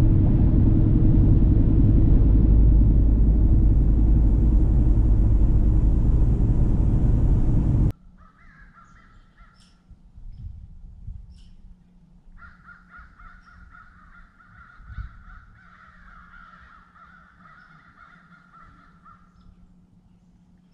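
Steady road and engine rumble inside a car's cabin at highway speed, cutting off suddenly about eight seconds in. After it, faint calls from a distant flock of geese across a lake, in two stretches with a short gap between them.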